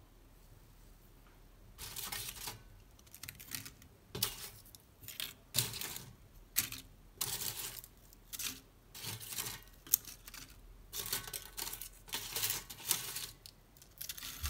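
Dry baked lavash chips crackling and rustling as they are picked up by hand and dropped into a ceramic serving dish. It comes as a string of short, irregular crisp rustles and clicks that starts about two seconds in.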